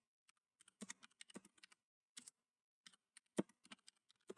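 Computer keyboard typing: faint, irregular key clicks starting about a second in, with one louder keystroke about three and a half seconds in.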